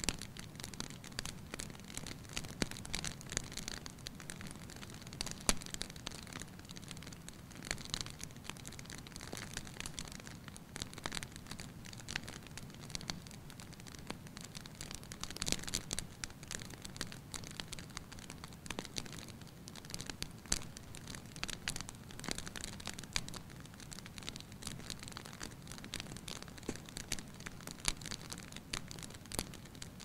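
Wood fire burning: stacked logs crackling, with frequent sharp snaps over a steady low rush of flame.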